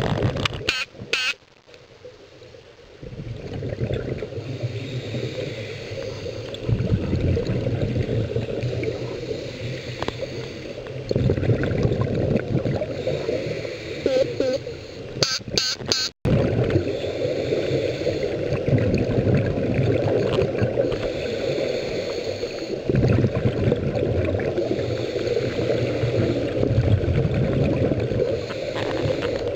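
Muffled underwater rumbling and bubbling of scuba regulator exhaust, swelling every few seconds with the breaths and heard through a camera's underwater housing. It cuts out briefly about halfway through.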